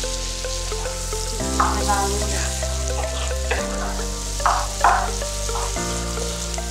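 Sliced tomatoes and onions sizzling in oil and butter in a nonstick frying pan, with a wooden spatula scraping through them a few times; the loudest strokes come about two seconds and five seconds in. Soft background music with slowly changing chords plays underneath.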